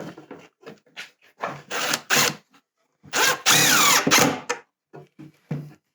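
Power drill driving screws into wood: a few short bursts, then a longer run about three seconds in.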